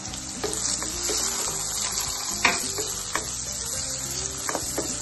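Chopped onions frying in hot oil in a black kadai, sizzling steadily while a spatula stirs them, scraping and knocking against the pan; one sharper knock about halfway through.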